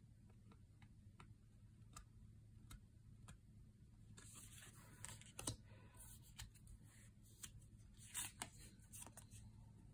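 Faint handling of paper oracle cards: a few soft rubs and light ticks as fingers move over the card stock, clustered about four seconds in and again near the end, over a low steady hum.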